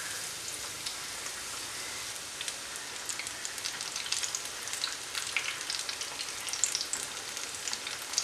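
Coated ripe plantain (banana) sticks frying in hot oil in a shallow pan, giving a steady sizzle with crackling pops that come more often after the first couple of seconds.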